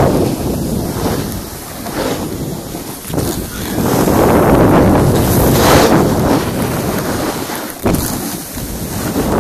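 Wind buffeting a phone's microphone while snowboarding downhill, mixed with the hiss of the board sliding over snow. It swells and eases every few seconds, with a sudden jolt near the end.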